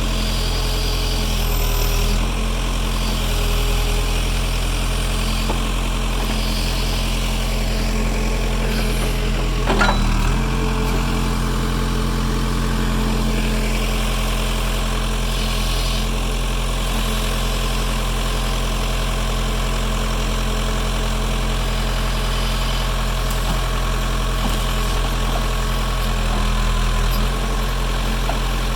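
Engine running steadily at an even speed, with one short knock about ten seconds in.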